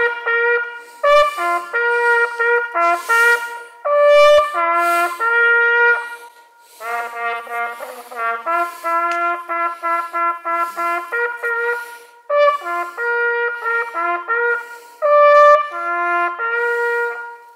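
Brass music: a horn plays a melody of quick repeated notes and longer held ones.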